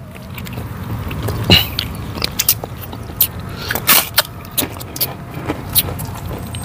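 Close-miked eating: wet chewing and mouth smacks with irregular sharp crunches, the loudest about four seconds in as a crisp kerupuk cracker is bitten, while chicken is torn by hand. A low steady rumble runs underneath.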